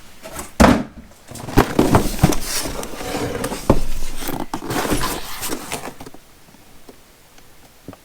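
Cardboard box and packaging being handled and opened: rustling and scraping with sharp knocks and clicks, stopping about six seconds in.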